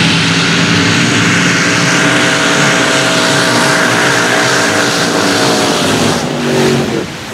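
Formula Offroad buggy engine held at full throttle, a loud steady high-revving note, with the hiss of spray as the buggy skims across the water. The engine note dips briefly near the end.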